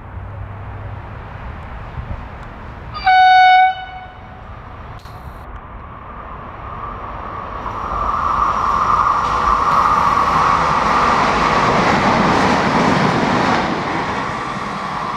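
Electric passenger train sounding one short, loud horn blast about three seconds in. The train then runs through the station: its running and wheel noise, with a steady whine, builds from about eight seconds and is loudest as it passes close.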